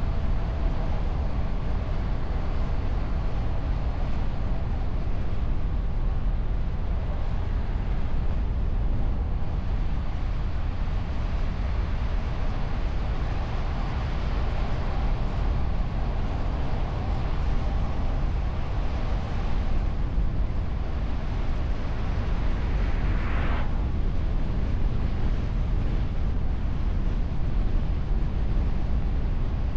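Car driving on the open road, heard from the bonnet: a steady rumble of wind and road noise with a faint hum underneath. About three-quarters of the way through there is one brief rising swish.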